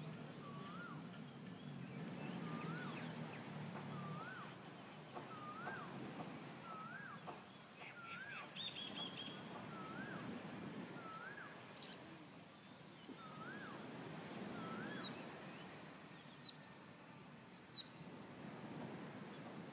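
A bird repeats a short rising-then-falling call about once a second, stopping about two-thirds of the way through. In the latter half a higher call that sweeps downward sounds four times, over a steady low background rush.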